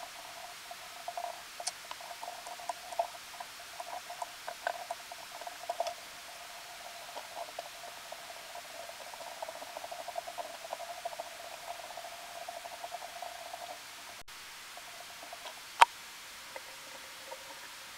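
Small clicks and scratches of hands and tools working a fly at a tying vise, over a faint steady hum that stops about fourteen seconds in. Near the end comes one sharp click.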